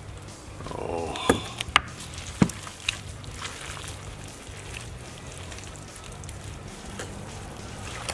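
Gloved hands pulling apart a tender smoked lamb shoulder on a wooden chopping board: soft wet tearing of meat, with four sharp knocks against the board in the first three seconds.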